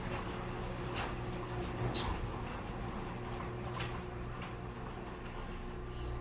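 Liftmaster Formula 1 3280 garage door opener running as it closes the door: a steady low motor hum with occasional light clicks.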